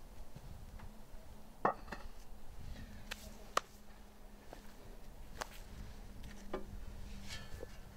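Scattered sharp clicks and taps, about half a dozen spread irregularly, over a low steady hum.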